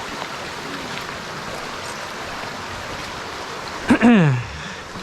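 Creek water running steadily over rocks, a constant rushing hiss. About four seconds in, a short spoken exclamation with a falling pitch cuts in over it.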